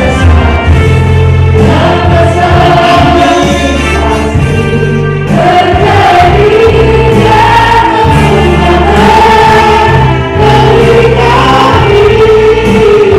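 Group of voices singing a gospel praise-and-worship song in sustained, held notes over steady instrumental backing.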